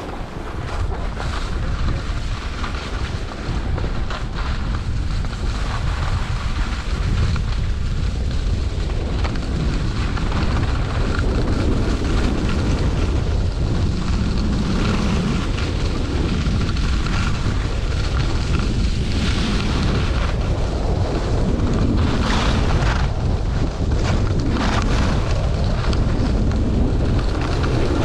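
Wind rushing over the microphone of a camera carried by someone sliding fast down a groomed ski run, a steady low rumble that builds over the first couple of seconds as speed picks up. Under it is the hiss and scrape of edges on packed snow, with a few sharper scrapes in the second half.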